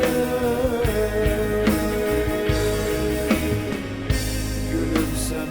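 Instrumental break in a Turkish rock song: guitar and bass over a steady drum beat.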